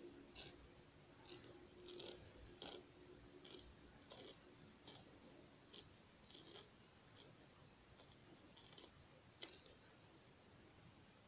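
Faint, irregular soft clicks and scratches of a metal crochet hook pulling thread through stitches, roughly one or two a second.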